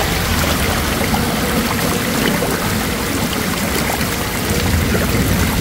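Floodwater rushing across paving and spilling over a stone ledge in a steady loud rush, with small splashes scattered through it.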